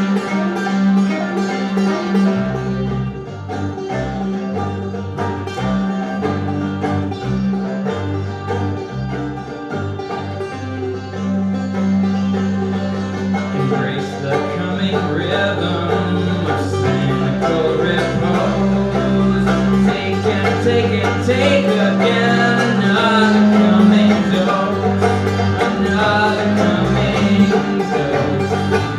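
Instrumental passage for banjo and double bass: the banjo picks a run of plucked notes over long, held low notes from the double bass played with a bow.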